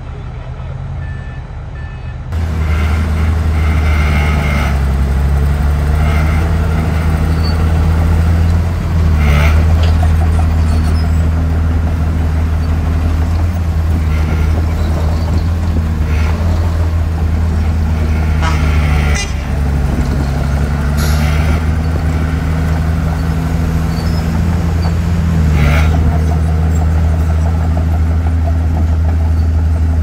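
Diesel engines of a Komatsu D51PX crawler bulldozer and a small dump truck running, the pitch rising and falling again and again as they rev under load, with a few sharp metal clanks.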